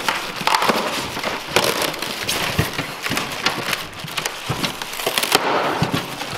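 Plastic bag and styrofoam packing crinkling and crackling as they are handled and pulled off a new table saw, a dense run of sharp crackles.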